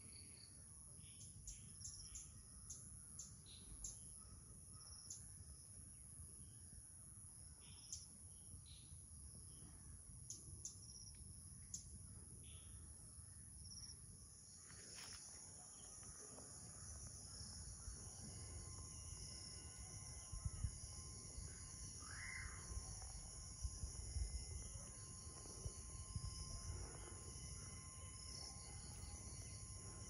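Faint natural ambience: a steady high-pitched buzz of crickets or other insects, with many short bird chirps in the first half and occasional bird calls later. A low rumble grows louder in the second half.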